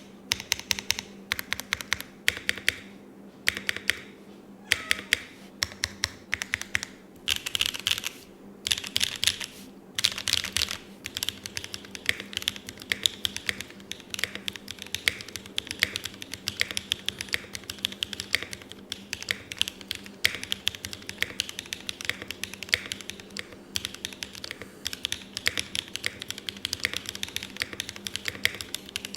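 Typing on a Nuxros RE65 custom mechanical keyboard: fast runs of key clacks, broken by a few short pauses in the first ten seconds, as a sound test of the freshly built board.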